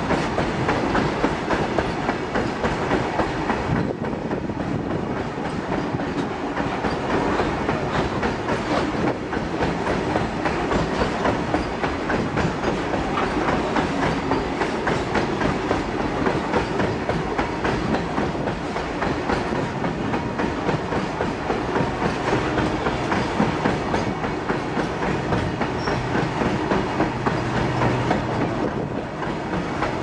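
Open-top freight wagons rolling past close by, a continuous rushing clatter of wheels over the rails. A low steady hum joins in over the last several seconds.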